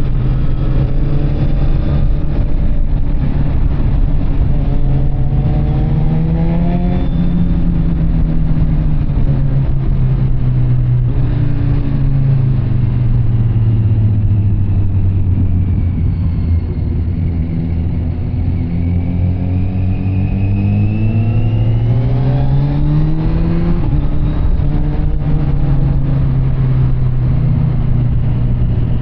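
Kawasaki Z900 SE's inline-four engine running through an SC Project CR-T carbon exhaust while riding. The engine note climbs about six seconds in, sinks slowly through the middle, climbs again to a peak about twenty-four seconds in, then drops back and holds steady.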